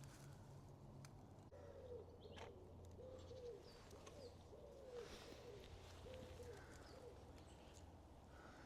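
Pigeon cooing faintly, a run of about eight soft coos over several seconds, with a few faint high chirps from small birds.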